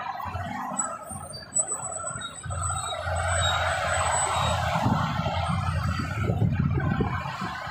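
Expressway traffic passing: a steady rush of tyre and engine noise from cars, buses and trucks. A heavier low rumble of large vehicles going by builds from about two and a half seconds in. A faint high-pitched squeal sounds in the first few seconds.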